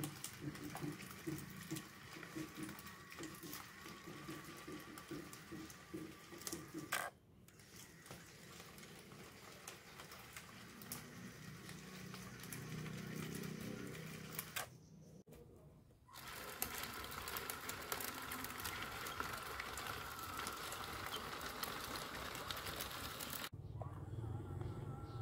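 Small electric motors of a scale RC excavator whirring as the arm, bucket and tracks move. The sound pulses evenly at first and later becomes a steadier whine, broken off several times by abrupt cuts.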